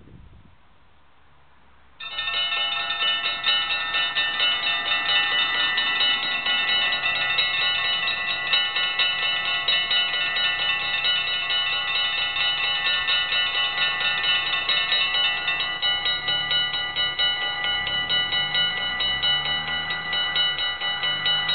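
Dutch level crossing warning bells start suddenly about two seconds in and ring rapidly and continuously as the crossing lights turn red and the barriers come down. Near the end a low sound rises and falls in pitch beneath the ringing.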